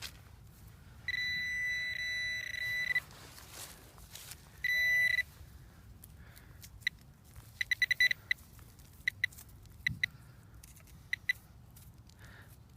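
Metal detector sounding its electronic target tone over buried metal: a two-second beep about a second in, a shorter one near five seconds, then a run of short, quick beeps from about seven to eleven seconds. The metal it is signalling is an old belt buckle.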